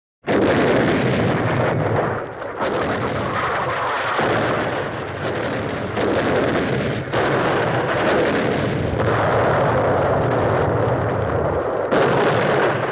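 A continuous barrage of explosion booms and rumble, like artillery fire. Fresh blasts land every second or two over the rolling noise, and the barrage cuts off abruptly at the end.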